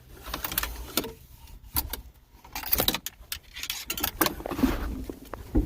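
Hard plastic clicking, knocking and rattling as a 2016 Isuzu NPR's climate control panel is worked loose and pulled out of the dashboard, in scattered sharp clicks.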